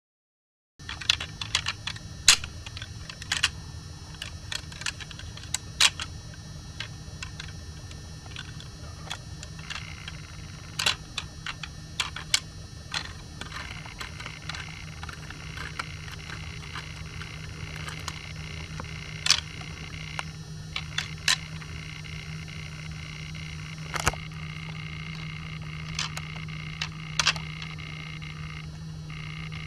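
Pair of 4-n-2 rattling antlers tapped and ticked together, giving sharp, irregular clicks and clacks, often a second or more apart, over a steady low hum.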